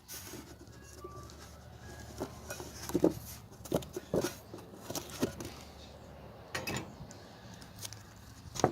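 Handling noise: scattered light clicks and knocks of small objects and the camera being moved and set down, at irregular intervals, the sharpest about three seconds in and just before the end.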